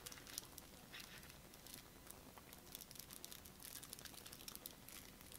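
Faint light clicks and rustling of Yu-Gi-Oh trading cards being thumbed through one by one in the hands.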